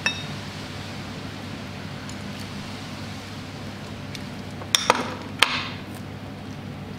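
A metal knife set down with a short ringing clink, then a few sharp taps and a brief scrape of a utensil against a small ceramic dish, over a steady low hum.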